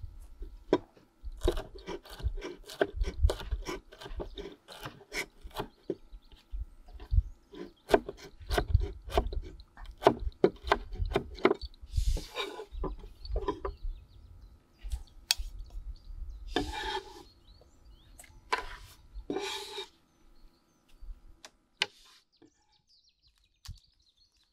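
Kitchen knife chopping on a wooden cutting board: quick, uneven cuts, with a few longer scraping sweeps of the blade across the board partway through and later on.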